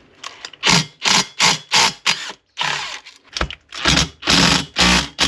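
Cordless power driver run in a series of short bursts, backing out one of the bolts that hold a Stihl MS180 chainsaw's engine unit in its case.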